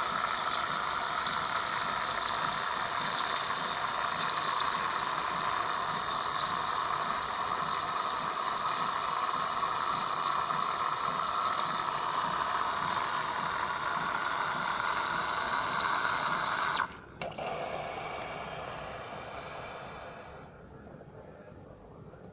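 Automatic coffee machine's steam milk frother frothing milk into a glass: a loud, steady high hiss. It cuts off sharply about 17 seconds in, and a fainter hiss fades out a few seconds later.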